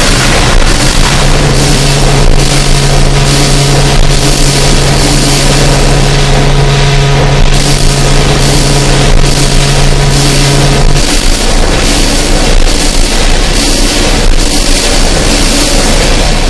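Loud noise music: a dense wall of distorted, hissing noise, with a steady low drone under it that stops about eleven seconds in.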